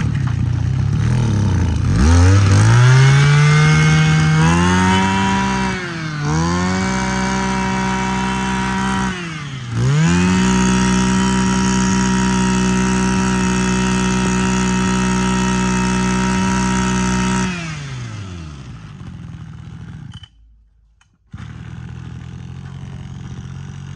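Mitsubishi TL23 23cc two-stroke brush cutter engine running. It is revved up sharply a few times, with two brief drops in revs, then held at high revs for several seconds. About 18 s in the throttle is let go and the engine note falls away.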